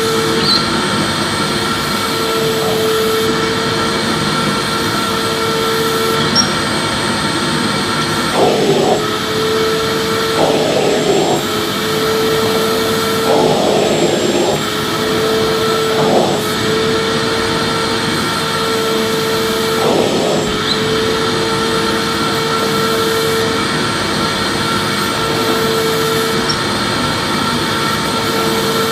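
Vacuum cleaner running continuously: a steady loud rushing noise with a constant motor hum. A few brief rough surges break in between about eight and twenty seconds in.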